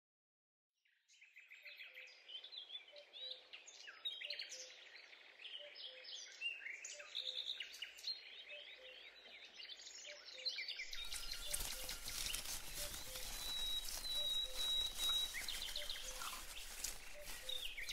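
Woodland ambience: small birds chirping and calling in short notes, over a soft low note repeating about twice a second. About eleven seconds in, a steady hiss comes in, and a thin high whistle holds for a couple of seconds.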